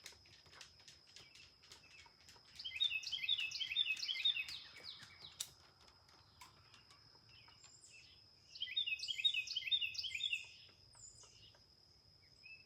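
Bluebirds giving two bursts of rapid, chattering call notes about six seconds apart, each lasting about two seconds, with faint scattered chips between them. The uploader takes it for a possible warning call, with a cat and dog just let out near birds that are still feeding fledglings. A faint steady high-pitched tone runs underneath.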